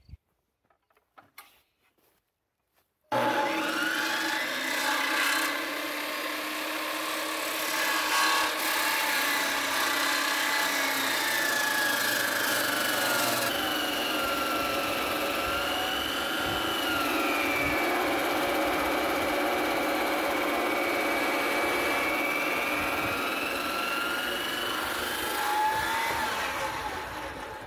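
A few faint clicks, then about three seconds in a large handheld circular saw starts and cuts through a thick timber beam. The motor's whine sags and recovers in pitch as the blade loads up in the wood, and it fades out near the end.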